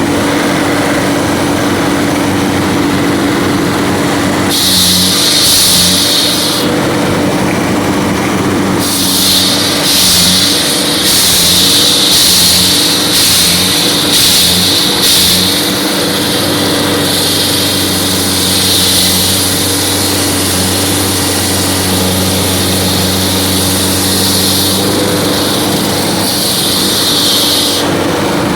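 Husqvarna walk-behind concrete saw running steadily under load as its 26-inch blade makes a full-depth wet cut through concrete. From about four seconds in, a high hiss from the blade in the cut comes and goes over the engine.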